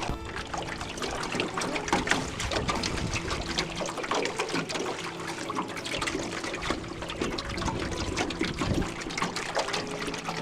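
Water splashing and trickling along the hull of a slow-moving boat, with a faint steady motor hum underneath.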